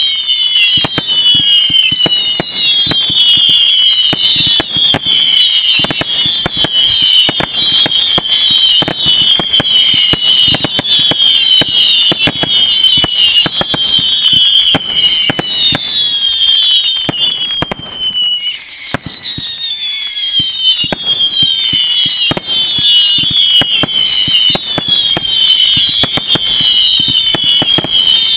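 A 100-shot firework cake firing silver whistling comets in quick succession: overlapping whistles falling in pitch over a dense run of sharp shots and burst cracks. The barrage eases briefly about two-thirds of the way through, then picks up again.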